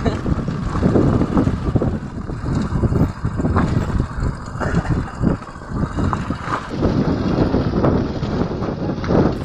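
Motorcycles, among them a single-cylinder Hero Splendor just ahead, running slowly over a loose-rock dirt trail. The engines' sound is mixed with irregular knocks and rattles as the bikes jolt over the stones, and wind buffets the phone's microphone.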